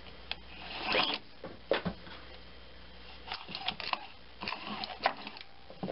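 Plastic recoil starter pulley, housing and nylon pull cord of a lawnmower being handled: irregular clicks and short rasps, the sharpest click about five seconds in.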